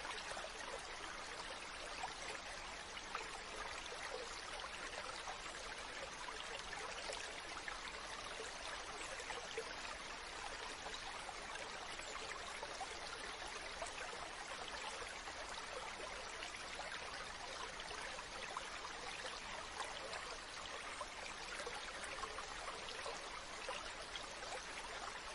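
Stream water running steadily: a continuous, even rush of flowing water.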